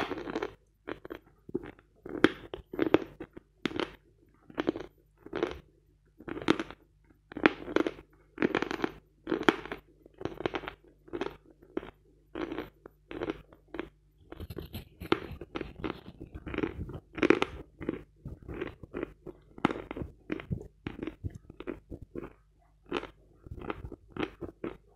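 Close-up crunching and chewing of a stick of eating chalk, a crisp crunch at about three chews every two seconds, picked up by a microphone held against the jaw.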